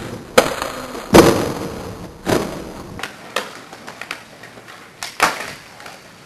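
Skateboard on asphalt: a series of sharp knocks from the board, the loudest about a second in followed by the rumble of its wheels rolling. The later knocks are fainter as the board moves away.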